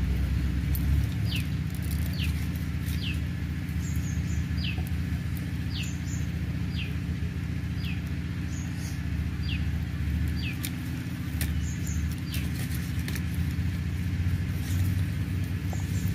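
A steady low hum, with a bird repeating a short falling chirp about once a second and now and then a higher double note.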